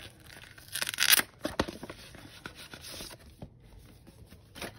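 Paper and thin card rustling, scraping and crinkling as a cardboard packaging folder is opened and its paper inserts are pulled out, loudest about a second in, then fainter.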